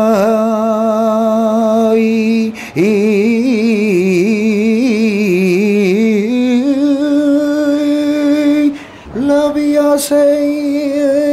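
A man singing unaccompanied, drawing out wordless Spanish-style lament notes. A long held note opens, a wavering, ornamented passage follows, then higher held notes with a short break near the end before the last note falls away.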